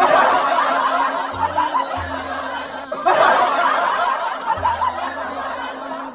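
Canned audience laughter, two swells of it, one at the start and another about three seconds in, each fading off, over background music.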